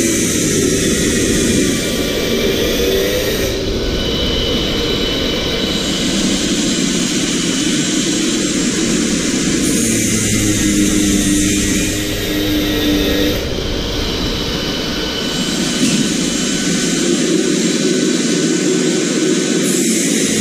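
Steady, loud rushing machine noise that runs on without a break.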